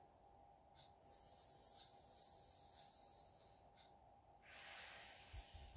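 Near silence, with a faint breath of air about four and a half seconds in: a slow, deep diaphragmatic breath taken as a breathing exercise.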